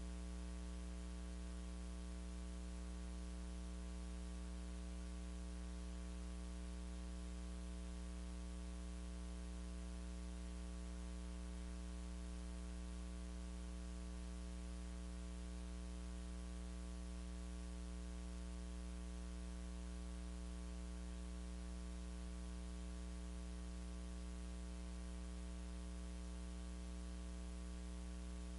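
Steady electrical mains hum with a layer of hiss, a low buzz with a few fainter steady tones above it, unchanging throughout. No music or singing comes through.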